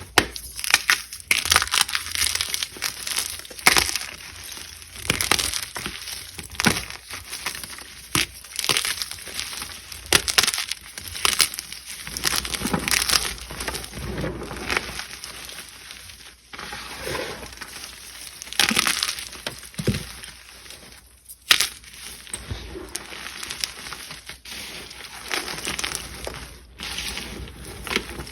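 Blocks of gym chalk (magnesium carbonate) being crunched and crumbled in an irregular series of dry crunches, with one especially sharp crack about three-quarters of the way through.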